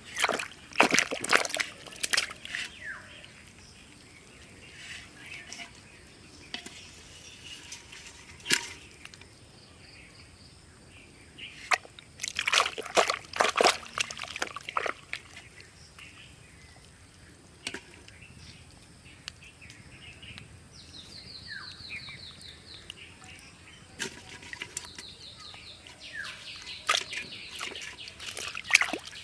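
Muddy water in a dug fishing hole sloshing and splashing in three bursts, with quieter trickling between them.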